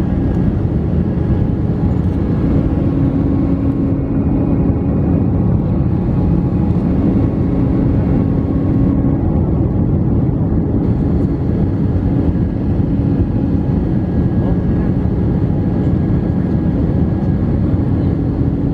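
Airbus A319 cabin noise on approach: the jet engines and rushing air running steadily, with a constant low hum.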